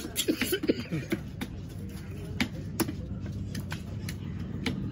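Sharp scattered knocks of a large knife cutting fish on a wooden chopping block. Voices are heard in the first second, over a steady low hum.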